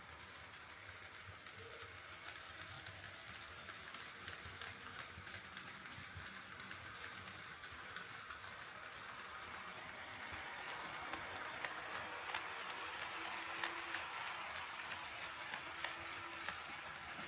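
HO scale model train running on the track, its wheels clicking over the rail joints with a steady hiss of running noise. It grows slowly louder as the train comes closer, with the clicks densest in the second half.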